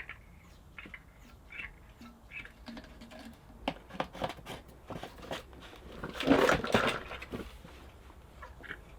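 Handling noises from work on a strimmer's fuel system: scattered light clicks and knocks, then a louder rustling scrape about six seconds in. No engine is running.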